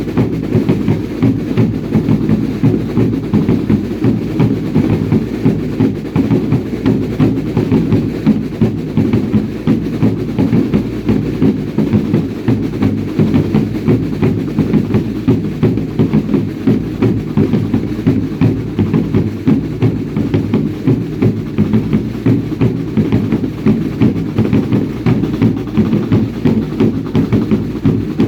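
Drums beating a steady, fast, unchanging rhythm of about three beats a second, the percussion of a traditional Baile Indio dance.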